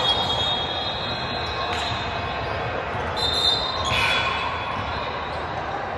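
Basketball game in a gym: a ball bouncing on the court over steady hall noise, with a few high-pitched sounds, each held about a second, around three to four seconds in.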